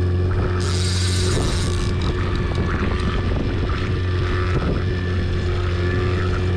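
Boat motor running steadily with a low, even hum. A short high hiss rises over it about half a second in and stops after a little more than a second.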